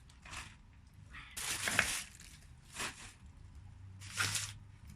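Rustling and crinkling of packed items being handled and piled up, in four short bursts.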